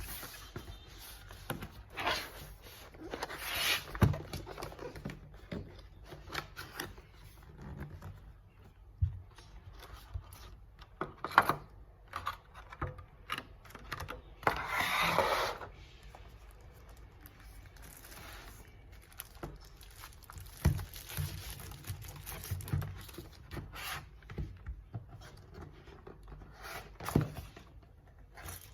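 Handling noises: scattered clicks and knocks with a few longer scraping, rustling stretches, as of packaging being opened and parts moved about. There is no steady run of keystrokes.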